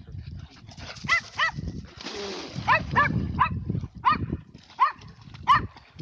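A dog barking repeatedly, about eight short barks spaced irregularly, over low background noise.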